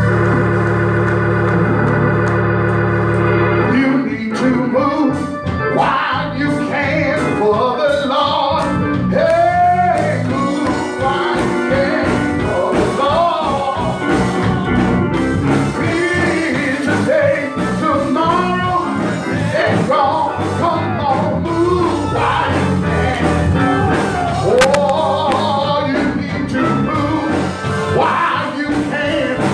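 Church organ holding a sustained chord, then from about four seconds in a man sings a gospel song over the organ accompaniment.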